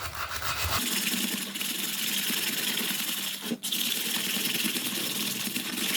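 Steady sanding of wood with 120-grit sandpaper, a continuous rasping with a brief break about three and a half seconds in.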